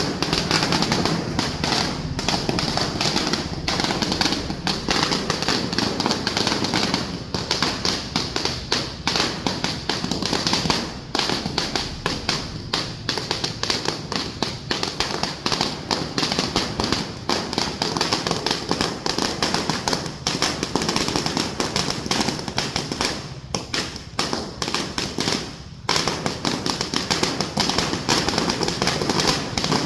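Long strings of firecrackers going off in a dense, continuous crackle of rapid bangs, thinning briefly a few times.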